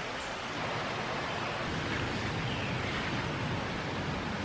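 Steady rushing outdoor ambience, an even hiss with no distinct events, and a faint short falling whistle about two and a half seconds in.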